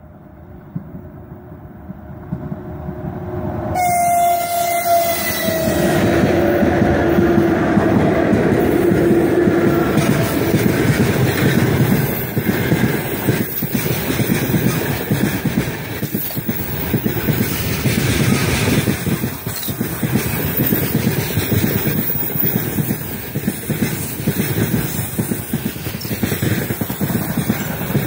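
Freight train hauled by 2ES5K "Ermak" electric locomotives passing close by. The locomotive horn sounds as it nears, its pitch falling as the locomotives pass about four seconds in. The freight wagons then roll past with steady wheel noise and clatter.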